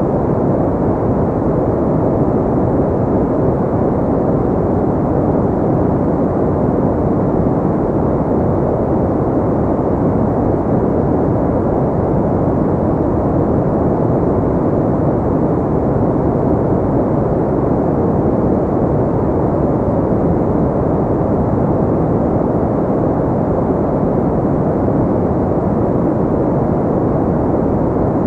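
Steady pink noise: an even, unbroken rushing hiss, deep and muffled in tone with little high hiss, holding the same level throughout.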